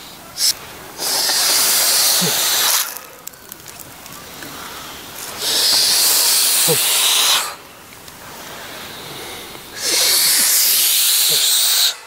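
Several people breathing out hard through a tightly closed mouth, making a long hiss of breath against resistance as part of a breathing exercise. There are three hisses, each about two seconds long and roughly four seconds apart, with quieter breathing in between.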